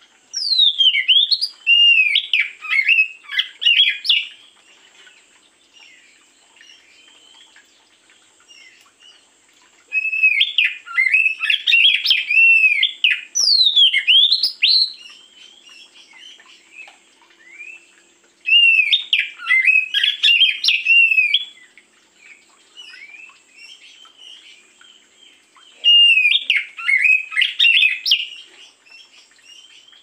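Oriental magpie-robin (kacer) singing: four loud bursts of rapid, varied whistled phrases, each a few seconds long, with quieter notes in the gaps between them.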